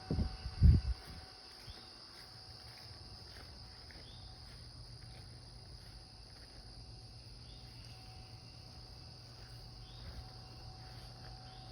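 Steady, high-pitched chorus of insects, with a few dull thumps in the first second.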